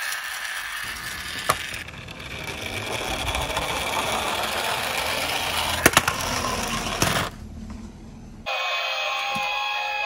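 Small toy police car's plastic wheels rolling down a wooden board: a steady rolling rumble with a few sharp clacks, which stops about seven seconds in. About a second and a half later, music with steady tones and gliding pitches starts suddenly.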